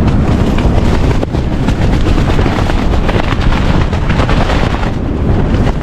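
Strong gale buffeting the microphone: a loud, continuous low rumble with irregular gusty thumps.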